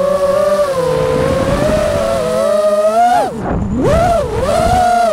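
FPV quadcopter's brushless motors and propellers whining, picked up by the onboard camera. The pitch wavers with throttle, then dips steeply and climbs back a little past three seconds, and dips again just after four, with a low rumble of wind underneath.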